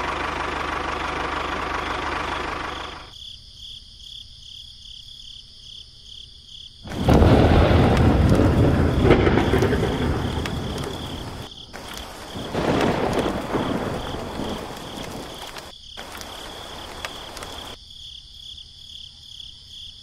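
Thunderstorm: rain falling with a loud rolling thunderclap about seven seconds in that slowly fades, and a second, weaker rumble of thunder a few seconds later.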